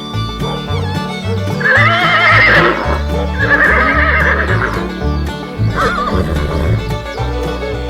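Horse whinnying: two quavering neighs of about a second each, then a shorter one later, over steady background music.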